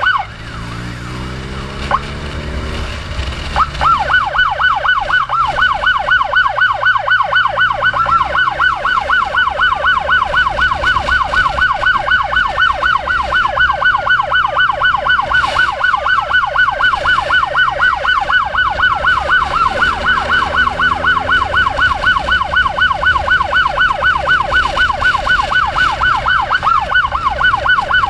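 Emergency motorcycle's electronic siren on a fast yelp, several sweeps a second, heard from the rider's seat. It cuts out for about three seconds near the start, when the motorcycle engine is heard rising in revs as it accelerates, then comes back; a slower wail rises and falls faintly underneath it through the middle.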